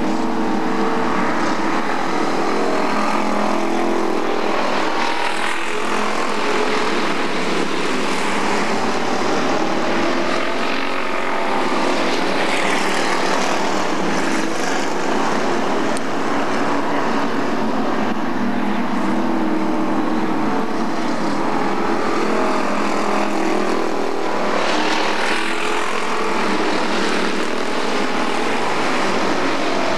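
A field of dirt-track street stock race cars running under racing power, a continuous engine noise whose pitch rises and falls several times as cars go by.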